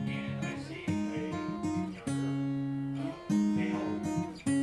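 Background music with a strummed acoustic guitar, a new chord struck about once a second.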